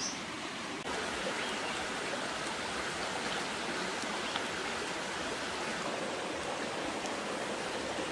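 Shallow rocky stream running, a steady rush of water that steps up a little, suddenly, just under a second in.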